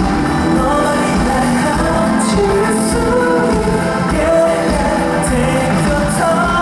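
Live pop song: a man singing a melodic line over a steady beat, loud through a concert sound system.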